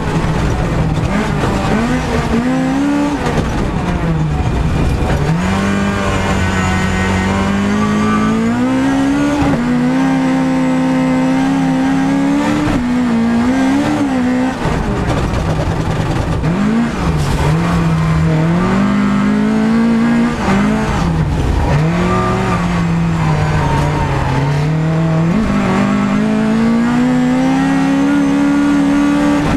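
Rally car engine heard from inside the cockpit at stage pace, revving hard and climbing in pitch, then dropping sharply at each gear change or lift, several times over.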